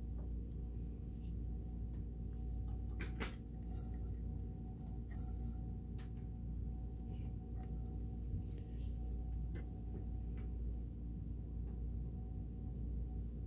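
Kenmore 158.1336 sewing machine's inner mechanism being turned slowly by hand at the handwheel, giving scattered light clicks and ticks from the metal parts, over a steady low hum.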